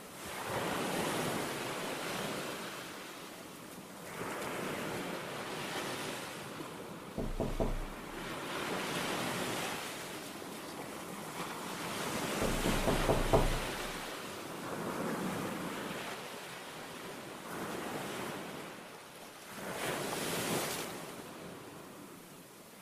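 A rushing, surf-like noise that swells and fades in slow waves about every four seconds. A brief low rumble comes about a third of the way in and again past halfway, the second at the loudest point.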